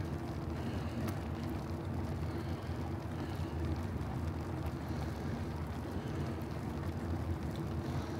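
Steady wind rush on the microphone with the rolling noise of a bicycle ride, unchanging throughout.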